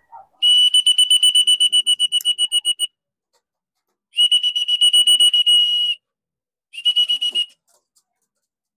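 A whistle blown in three trilling blasts, two long and one short, on one steady high pitch: the fancier's call for his racing pigeons to come down into the loft.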